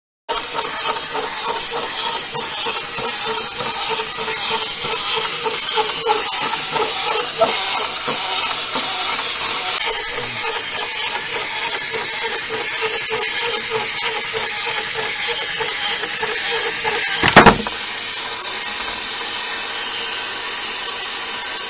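A walking granny toy's motor and gears whirring steadily, its walking mechanism making a regular pulsing. About 17 seconds in there is a sharp clatter as the toy tips over onto the table, and the mechanism keeps whirring afterwards.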